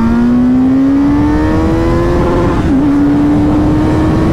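Kawasaki Z900 inline-four through an Arrow titanium slip-on exhaust with the dB killer removed, accelerating hard. The engine note climbs steadily, dips briefly at an upshift about two and a half seconds in, then pulls on in the next gear, over wind rush on the microphone.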